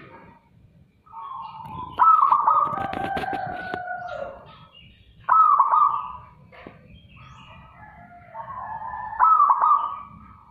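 Zebra dove (perkutut) singing loudly: three cooing phrases about two, five and nine seconds in, each starting sharply. The first has a fast rolling trill, and faint chirps of other birds come between the phrases.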